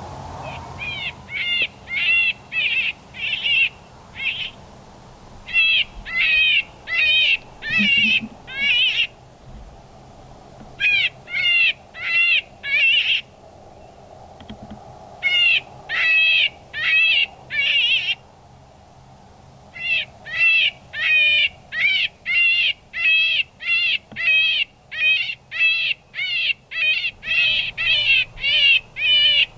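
Electronic predator call playing a prey distress sound: a long run of short, wavering, high cries, two to three a second, in bouts broken by brief pauses.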